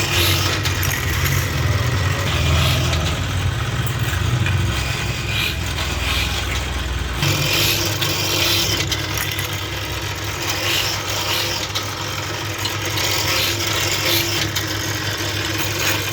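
Factory machinery running steadily with a low hum, and a hiss or clatter that swells again every second or two. The hum changes about seven seconds in.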